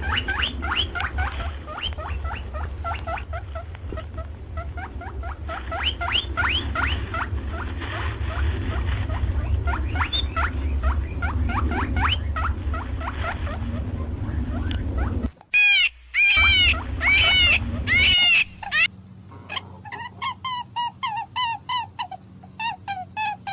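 Small animals squeaking rapidly over a low rumble for about fifteen seconds. This is followed by a few seconds of loud, high, repeated calls and then a run of short, quick chirps.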